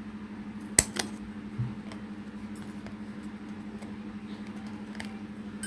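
Hand-held single-hole paper punch snapping through a card backed with cardstock and book paper: one sharp click about a second in, then a lighter click as the jaws open. A low steady hum runs underneath.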